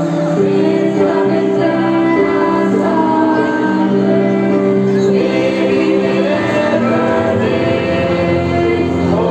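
A choir of mostly women's voices singing a gospel song together, with notes held for a second or more.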